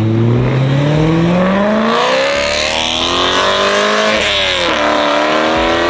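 BMW E92 M3's V8 engine accelerating hard, its pitch climbing steadily. About four seconds in the revs drop sharply as it shifts up a gear, then climb again.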